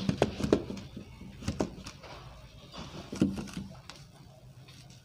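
Handheld eraser wiped across a whiteboard in a series of short rubbing strokes, which come in two spells.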